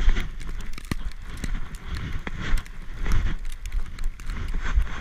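Siberian Husky puppy bounding through powder snow with a GoPro on its back: an uneven run of thuds and clicks from its footfalls and the jostled camera, over rustling.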